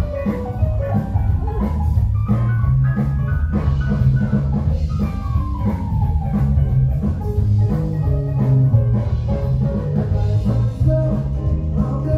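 Live rock band playing through the stage PA: drum kit, electric guitars and keyboards with a steady beat and a strong bass end.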